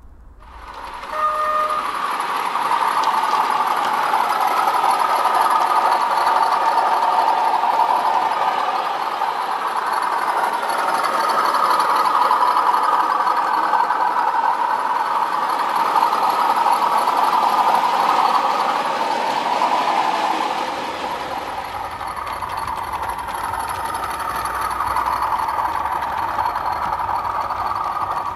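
OO gauge model train running on the layout: a rake of model bulk cement tank wagons behind a model diesel locomotive, making a continuous whirring, rolling noise that swells and eases as it passes.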